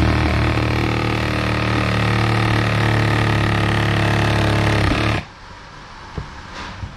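Cordless reciprocating saw with a Bosch wood blade cutting through a chengal hardwood board. It runs at a steady speed for about five seconds, then stops suddenly as the cut finishes.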